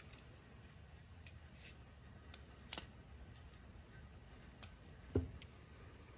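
A few faint, scattered metallic clicks and taps, the strongest about three seconds in: a digital caliper's steel jaws being slid and closed on a worn brake pad to measure its thickness.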